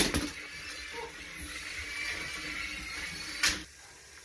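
Battery-powered Thomas Trackmaster toy train set whirring steadily as the engine rides the motorized lift up the Sky High Bridge Jump tower, with a sharp click near the end.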